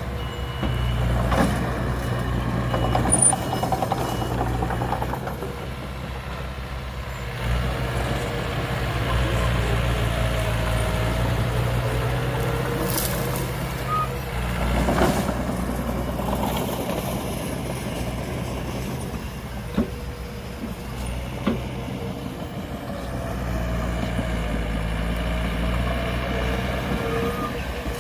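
Heavy diesel earthmoving machinery running steadily, with a few sharp knocks over the engine sound.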